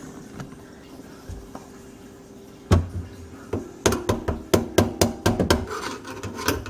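Sharp knocks and taps from work on the under-sink drain parts: one knock about two and a half seconds in, then a quick irregular run of about a dozen taps near the end, over a faint steady hum.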